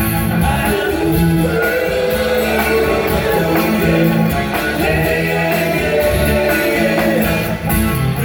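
Live rock band playing an instrumental passage between sung lines, with a steady drum beat under sustained pitched notes.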